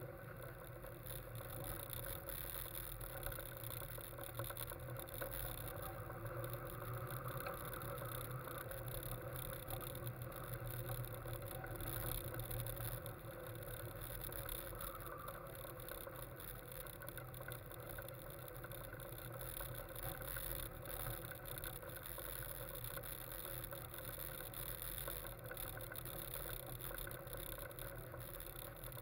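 Westfield kit sports car's engine running steadily at low speed, a low hum with road and wind noise and no sharp revs.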